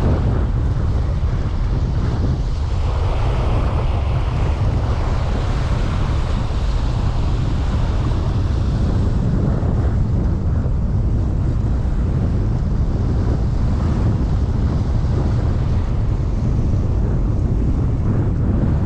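Strong storm wind buffeting the microphone in a steady low rumble, with waves rushing on the lake shore behind it, louder for a few seconds near the start.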